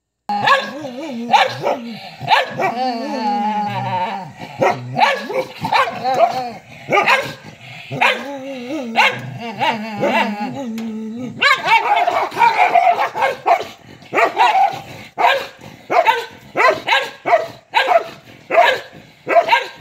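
Dogs squabbling over a food bowl: growling and snarling mixed with barks, then a run of sharp barks, about two a second, from about halfway through.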